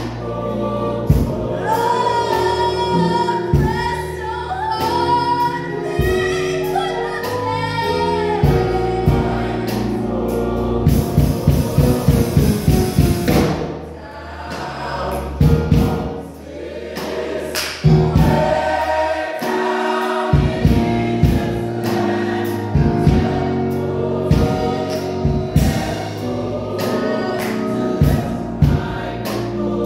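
Gospel choir of mixed male and female voices singing in parts, over a deep bass line and a steady percussive beat. The sound thins briefly about halfway through before the full choir comes back.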